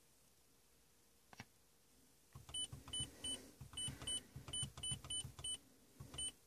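Audio unit of a 2013 Mazdaspeed3 giving a short high beep for each button press, about ten beeps in quick succession, with the dull knocks of the buttons being pushed. A single click comes about a second in.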